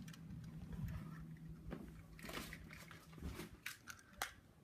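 Faint footsteps and handling noises with a low steady hum, then a single sharp click near the end.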